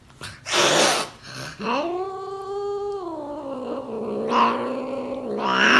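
An angry cat, held against its will, hisses sharply about half a second in, then lets out a long drawn-out yowl that drops lower partway through, with another hiss near the end.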